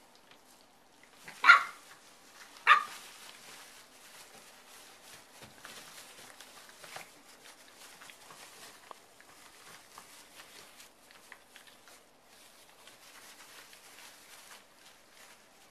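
English bulldog puppy giving two short, high barks about a second apart near the start. Then comes faint, scattered rustling and crackling of shredded-paper bedding as the puppies move about.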